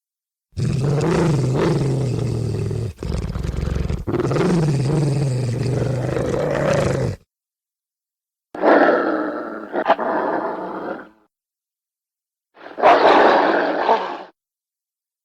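Werewolf sound effects: a long, low, wavering growl lasting several seconds, then two shorter, higher snarling roars, each cut off into dead silence.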